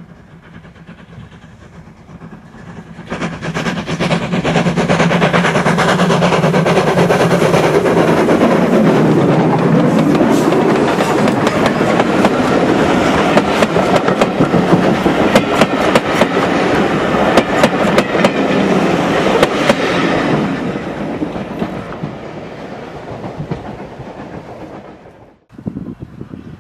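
Steam locomotive hauling a train of coaches passes close by, swelling from a distance about three seconds in. The coaches' wheels clatter rapidly over the rail joints as they pass, then the sound fades away, with an abrupt change near the end.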